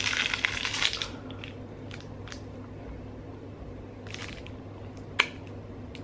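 Foil candy wrapper crinkling as it is peeled open, stopping about a second in. Then a few faint clicks and mouth sounds of biting and chewing a chocolate candy, with one sharp click about five seconds in.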